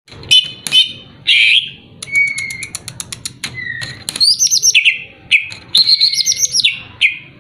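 Green leafbird (cucak ijo) singing a loud, varied song: harsh chirps, a rapid run of clicks about two seconds in, then whistled phrases that rise and fall in the second half.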